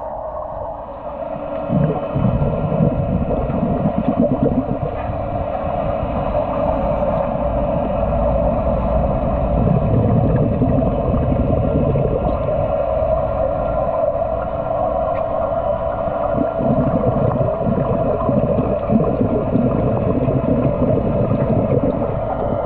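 Underwater sound in a swimming pool: a steady hum with irregular bubbling and gurgling from scuba divers' exhaled air, louder from about two seconds in.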